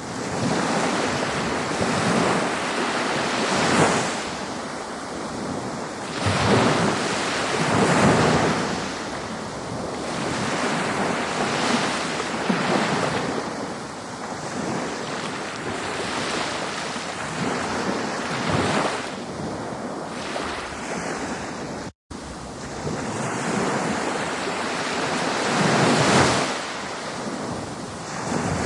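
Ocean surf: waves breaking and washing ashore in a steady churning rush that swells and ebbs every couple of seconds. The sound cuts out for an instant about two-thirds of the way through, then resumes.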